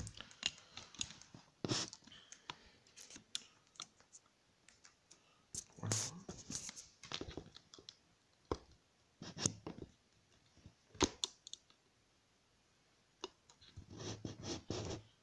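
Handling noise: irregular clicks, scrapes and rustles as objects are moved about on a desk, with scratchy bursts about six seconds in and again near the end.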